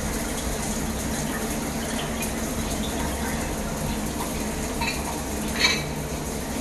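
Water running steadily from a shower, with a brief knock a little over halfway through.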